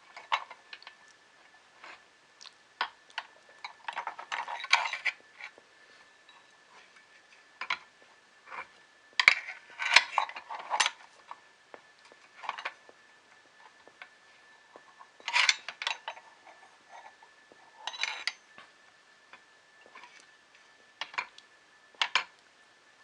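Small metal parts clinking and clicking in irregular clusters as a bolt is fitted by hand into a 3D printer's Z-shaft support bracket.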